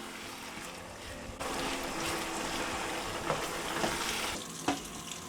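Meat pie filling frying in a pan, sizzling steadily and getting louder about a second and a half in, with a few light knocks.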